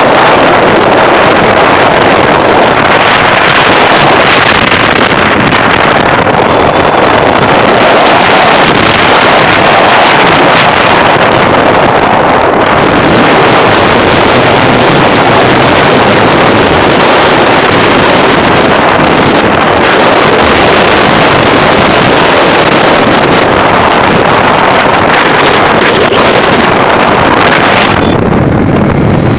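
Loud, steady wind rush buffeting the microphone of a phone carried on a moving motorcycle, with the motorcycle's engine running underneath.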